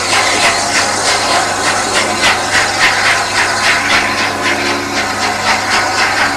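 Heritage railway train in motion: a steady hum with an even, fast beat of about four strokes a second running through it.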